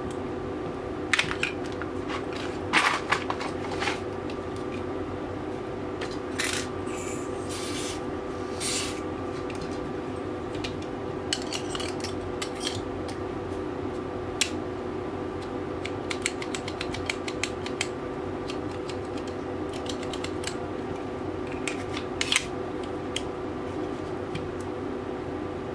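Small parts of a Tokyo Marui Hi-Capa gas blowback pistol clicking, clinking and scraping as the barrel and slide are handled and fitted together, in scattered irregular clicks with a few short scrapes, over a steady background hum.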